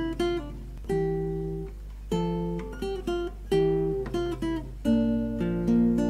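Background music: chords on a plucked string instrument, likely guitar. A new chord comes about every second and a half and rings out, fading before the next.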